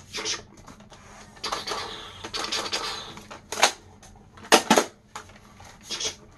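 Plastic toy blaster being handled and shouldered: a few sharp clicks and knocks of its plastic shell, with rustling of movement between them.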